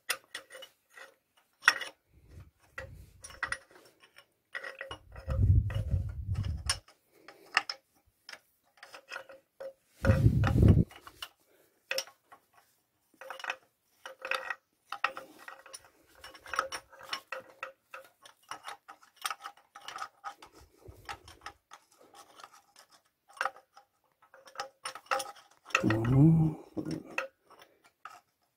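Irregular metallic clicking and scraping of a hand tool against a Peugeot XD diesel engine block as the oil pump thrust plug is worked into place. Dull thumps come about 5 seconds in, again around 10 seconds, and near the end.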